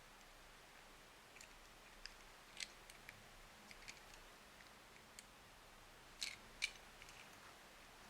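Small plastic toy parts handled, giving scattered short clicks and taps, with two louder clicks close together about six seconds in.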